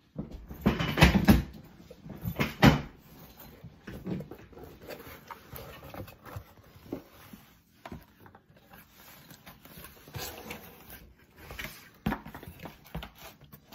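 Cardboard pizza box and camera being handled close to the microphone: two loud bumps in the first three seconds, then scattered knocks, taps and cardboard rustling.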